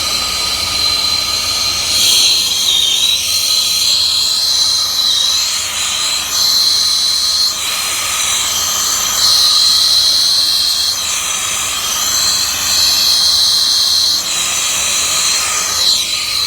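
Turbo torch with a number 5 tip burning with a steady hiss and a high whistle as it heats 3-inch copper pipe for soldering; the sound changes abruptly several times.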